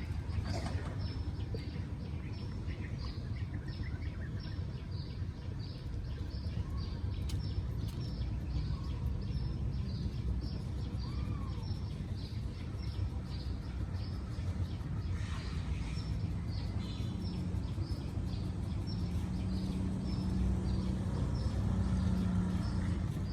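Outdoor ambience: a steady low rumble with a short high chirp repeating about twice a second.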